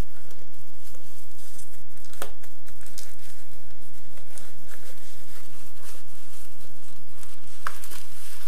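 Handling noise from unpacking: foam and plastic packing crinkling and rustling as a plastic model base is lifted and shifted, with a couple of sharp clicks of plastic against the desk, over a steady low hum.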